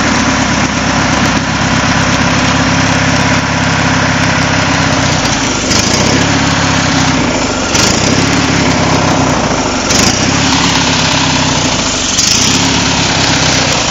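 A 19.5 HP V-twin engine on a Craftsman riding tractor running steadily, with short dips in its sound every couple of seconds.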